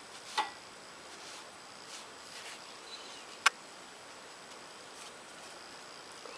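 Two sharp clicks about three seconds apart, the second louder, over a faint steady high-pitched whine.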